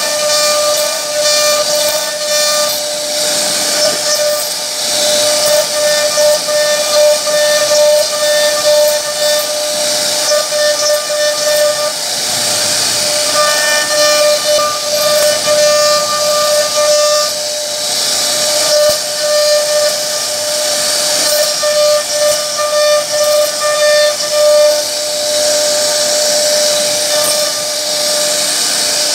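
CNC router spindle whining steadily as its carving bit cuts relief patterns into a solid wood door panel, with a constant hiss of cutting. The upper tones of the whine come and go every few seconds as the bit moves in and out of the wood.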